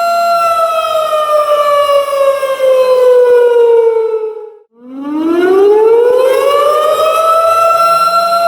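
Tornado warning siren wailing. It holds a steady pitch, then slides down over about four seconds and cuts out briefly a little past the middle. It then winds back up to its full steady pitch.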